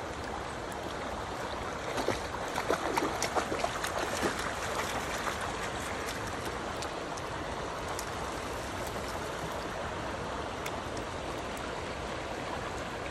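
River water flowing steadily, with a run of splashes about two to four seconds in as a German Shepherd wades out through the shallows.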